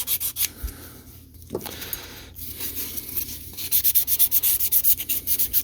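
Sandpaper rubbed back and forth by hand on a rusted metal typewriter part, scrubbing out rust pits. Quick scratchy strokes, lighter in the middle and a fast, steady run of about six strokes a second near the end.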